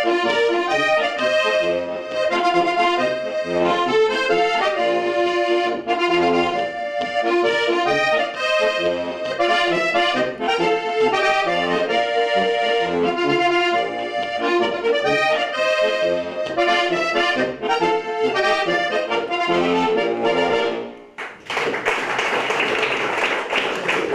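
Sitar diatonic button accordion playing a lively Slovenian folk tune with rhythmic bass, until the piece ends about three seconds before the close. Applause follows.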